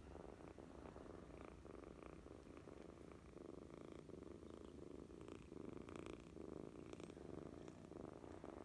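Kitten purring steadily and softly while being held, a continuous fine pulsing rumble.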